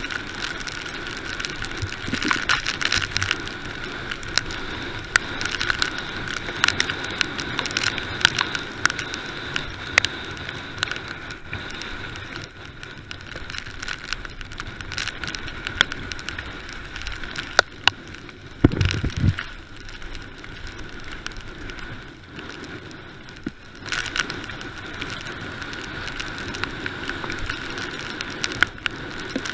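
Mountain bike descending a rough, muddy dirt track at speed: steady tyre noise with frequent sharp rattles and clicks from the bike over bumps, and a brief low rumble about two-thirds of the way through.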